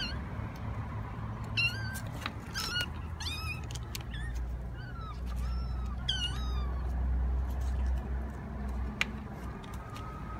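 A kitten meowing: about six short, high-pitched meows in quick succession during the first two-thirds, over a low background rumble.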